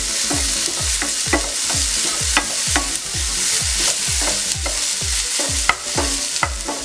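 A wooden spatula scrapes and taps a non-stick frying pan in repeated strokes, about twice a second, stirring a masala of onion, tomato and spices. The masala sizzles steadily in the oil while the tomato cooks down.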